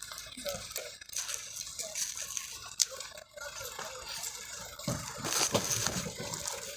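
Footsteps crunching and scuffing over rubble and gravel as a group carries a stretcher, with rustling and scattered clicks. Louder shuffling and faint, indistinct voices come in near the end.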